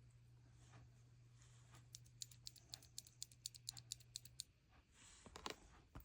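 Durock Piano Palm linear mechanical keyboard switch pressed repeatedly by hand, giving light clacks as the stem bottoms out and springs back, about three a second. The run of clicks starts about two seconds in and stops shortly before the end.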